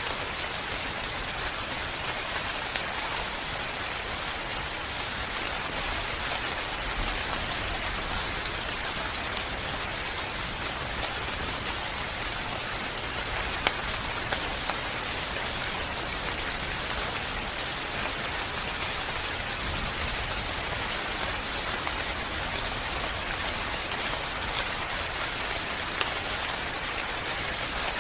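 Steady rain falling on a surface: a dense, even patter of drops with an occasional sharper drip tick.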